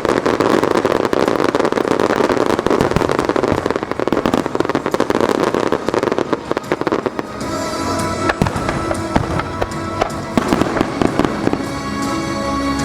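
A starmine fireworks barrage: dense rapid crackling and bursting of shells. About seven seconds in, the crackle thins to separate sharp pops and bangs, and the music accompanying the show comes through clearly.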